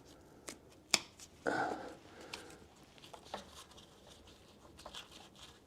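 A few sharp clicks and soft handling noises as a piece of foam insulation is cut to fit around a door lock, the sharpest click about a second in.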